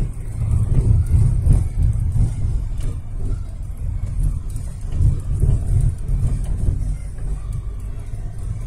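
Car on the move heard from inside the cabin: engine and road rumble, low and uneven in level.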